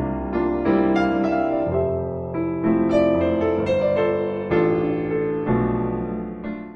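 Piano music: a slow melody over held chords, cutting off at the very end.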